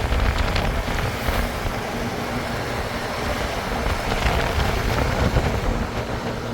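Diesel engine of heavy earth-moving machinery running steadily, with a few knocks in the first second.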